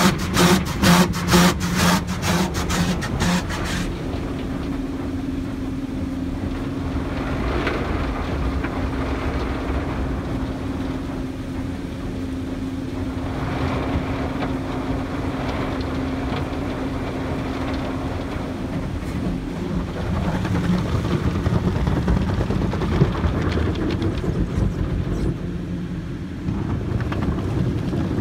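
Automatic car wash heard from inside the car: spinning cloth brushes slapping rapidly against the glass for the first few seconds, then a steady rush of water and scrubbing with a humming wash motor.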